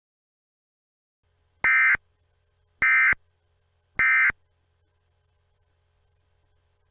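Three short Emergency Alert System data tones from a cable TV box's audio, each about a third of a second long and spaced about a second apart: the end-of-message bursts that close the EAS test.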